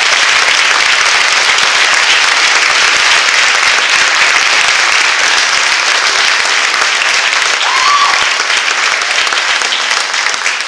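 Audience applauding steadily after an award announcement, the clapping thinning out near the end.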